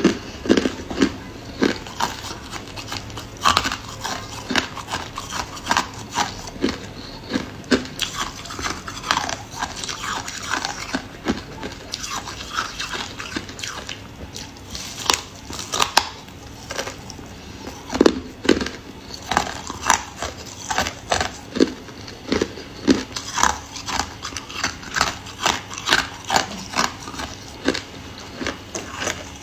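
Freezer frost being bitten and chewed: an irregular run of crisp crunches, several a second, with louder bites now and then.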